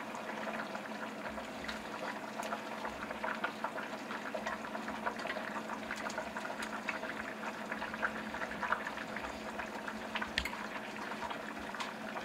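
Chicken soup broth boiling steadily in a stainless steel stockpot: dense bubbling with many small pops.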